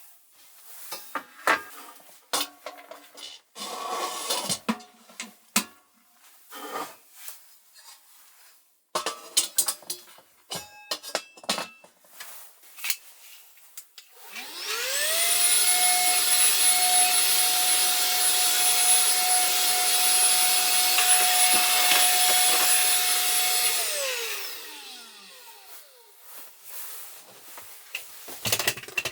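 Clicks and knocks of objects being handled. About halfway through, a small electric motor spins up, runs at a steady whine for about nine seconds, then winds down.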